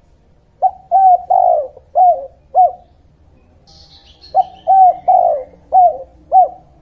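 Spotted dove (tekukur/derkuku) cooing: two phrases of five coos each, a little under two seconds apart. A faint high chirp from a small bird comes between them.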